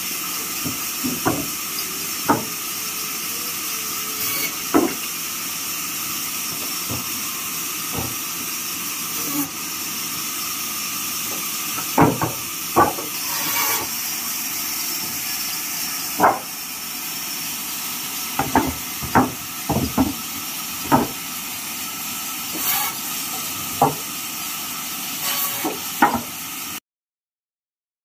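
Vertical sawmill bandsaw running steadily, with sharp wooden knocks every second or two as neem planks are handled and dropped. The sound cuts off suddenly near the end.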